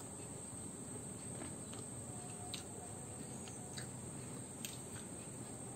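Faint, soft clicks of fingers mixing rice on a plate, a few times, over a steady high-pitched background hiss.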